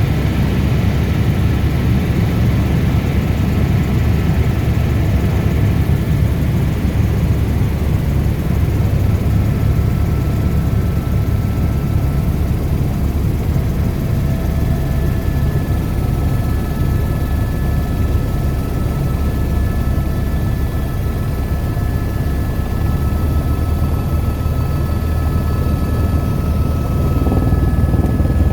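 Helicopter running steadily: a loud low drone of rotor and engine with a thin, steady high whine over it.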